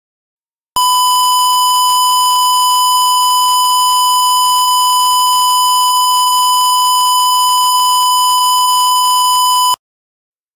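Emergency alert tone: a single steady, buzzy tone near 1 kHz, matching the NOAA Weather Radio 1050 Hz warning alarm tone that precedes a tornado warning. It starts after a short gap, holds unchanged for about nine seconds, then cuts off abruptly.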